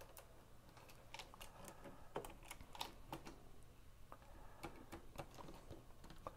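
LEGO bricks being handled and pressed onto a plastic base: faint, irregular plastic clicks and taps.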